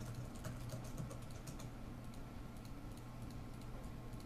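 Computer mouse clicking rapidly and irregularly, several clicks a second, as cells of an LED-matrix grid are toggled in an editor program, over a steady low hum.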